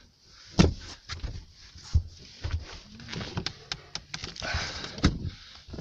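Handling noise from refitting a car's fuel-pump access cover and boot carpet: scattered knocks and clicks with rustling, the sharpest knocks about half a second in, at two seconds and near the end.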